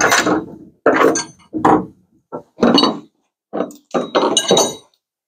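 A run of about eight separate metal clinks and knocks, a few with a short high ring: bolts and hand tools being handled on a pickup truck bed.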